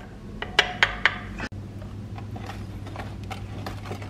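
A wooden spoon scrapes melted chocolate and butter out of a glass measuring jug into a mixing bowl, with three sharp clicks of spoon and jug about a second in. Then a wire whisk stirs it into the egg batter, with light, irregular ticking against the bowl.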